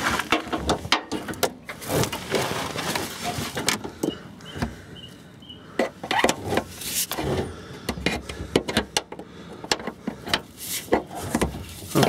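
Hands working a gearshift cable up through a grommeted hole in a van floor: rustling, scraping and irregular knocks and clicks of cable and metal being handled.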